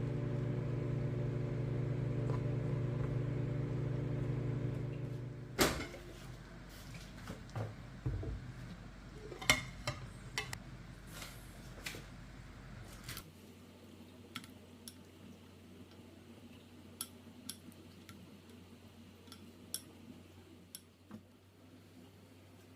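Microwave oven running with a steady hum, which cuts off with a click about five and a half seconds in. Then come scattered clinks and knocks of dishware being handled, and later a few faint ticks.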